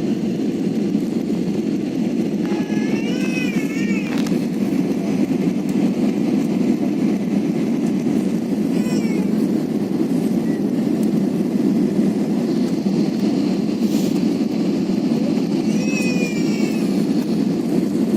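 Steady roar of an airliner cabin: engine and airflow noise at an even level. Over it come a few short, high, wavering cries, about three seconds, nine seconds and sixteen seconds in.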